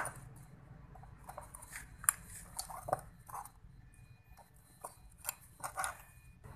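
Screwdriver working the screws of a Yamaha Mio's carburetor: a sharp click at the start, then scattered light metallic clicks and scrapes as the screws are turned and the carburetor body is handled.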